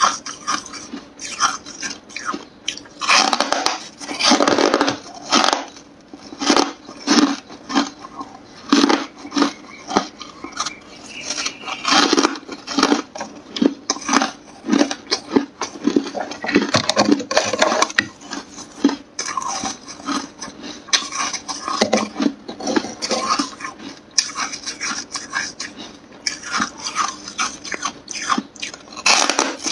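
A person biting and chewing frost-coated hard ice, with crisp crunches and crackles coming in quick, irregular flurries.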